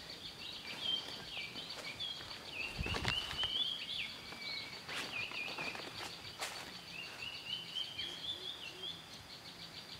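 Outdoor tropical ambience: a bird calling repeatedly in short chirpy notes, over a steady high-pitched insect drone. A few rustles and a dull thump about three seconds in, from someone walking through the undergrowth.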